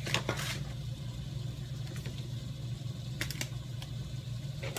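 A steady low mechanical hum, with a few sharp clatters of cookware as a baking tray is taken out of the oven: just after the start, twice about three seconds in, and again at the end.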